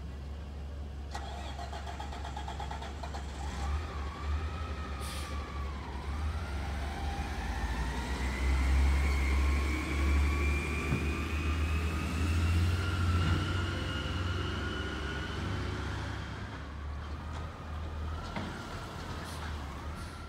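Garbage truck pulling away and accelerating: a whine rising slowly and steadily in pitch over about ten seconds, above a steady low engine rumble that is loudest in the middle.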